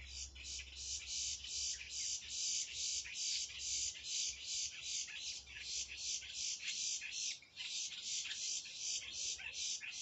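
Animal calls outdoors: a high, rapid chirping in even pulses, about four a second.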